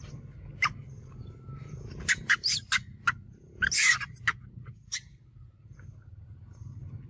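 Macaques squealing in short, sharp, high-pitched bursts while scuffling on the ground, in clusters about two and four seconds in, with a few single clicks between, over a low steady hum.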